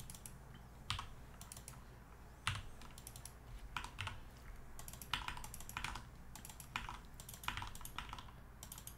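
Computer keyboard typing: irregular keystrokes, single taps and short runs of two or three, with brief pauses between, as numbers are entered one after another.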